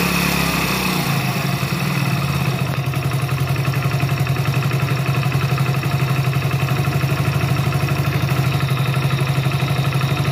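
A Hero Splendor Plus BS6's single-cylinder engine idles fast. About a second in, its speed drops as the idle screw on the throttle body is backed off, then it settles into a steady, lower idle. The idle had been set too high.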